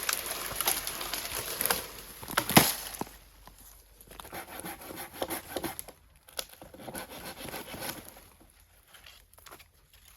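Dry twigs and branches rustling, crackling and snapping, with one sharp loud snap about two and a half seconds in, then sparser rustles that fade.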